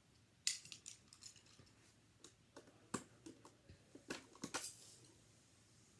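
Tiny plastic miniature kitchen pieces clicking and clattering as they are picked up and handled, a few faint irregular clicks.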